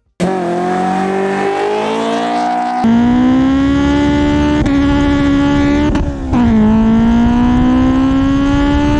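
Honda S2000 inline-four engine accelerating hard through a Tanabe Medallion Touring cat-back exhaust with a Berk test pipe. The pitch climbs steadily, then dips and climbs again about three times, as on upshifts.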